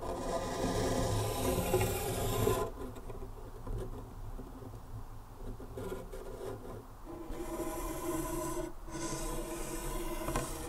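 A paper strip rubbing and rasping against a wooden frame in a sound-art installation. It is loudest in the first two and a half seconds, then comes back in two shorter spells near the end.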